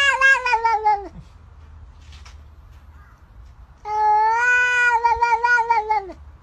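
A cat meowing in long, drawn-out calls. One call trails off, falling in pitch, about a second in. After a pause, a second call of about two seconds starts near the four-second mark.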